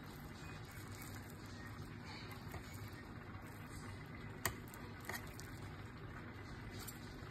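Quiet steady room noise, broken by one sharp click about four and a half seconds in and a fainter click about half a second later.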